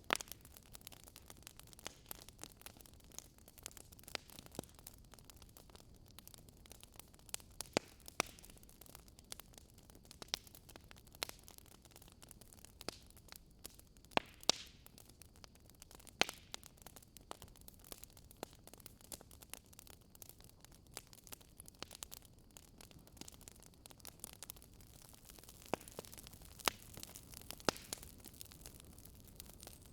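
Wood fire crackling in a fireplace: irregular sharp pops and snaps over a soft steady hiss, with a few louder snaps scattered through.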